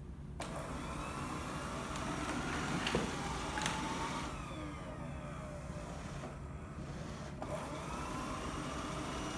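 Ecovacs robot vacuum switched on and running: a steady motor hum with whining tones that slide up and down. Two sharp clicks come about three seconds in.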